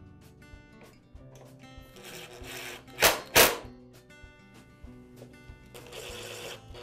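Plastic top cover of an espresso maker snapping into place with two sharp clicks about three seconds in, then a cordless screwdriver briefly whirring as it drives in a screw near the end. Background music plays throughout.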